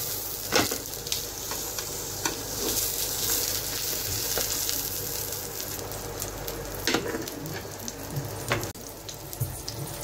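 Beef burger patties sizzling steadily in a flat pan. Sharp clicks of a metal utensil against the pan come about half a second in, near seven seconds, and again a little later.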